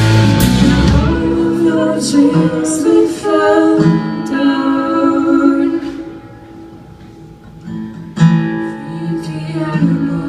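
Live rock band playing. The drums and bass drop out after about a second and a half, leaving guitar and singing. That thins to a quiet stretch in the middle, then a sharp strummed guitar chord comes back in loudly near the end.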